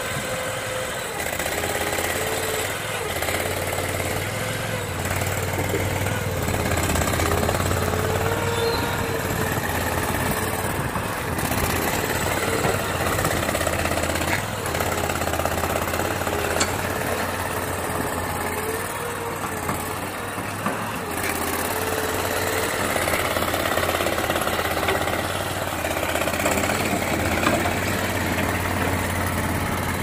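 Diesel engine of a Sherpa 100 mini skid steer running steadily under working load as the machine drives and works its loader bucket, with a faint whine that wavers up and down in pitch.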